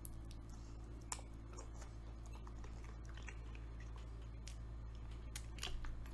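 A person chewing and biting food close to the microphone: scattered short, wet mouth clicks and smacks. A steady low hum runs underneath.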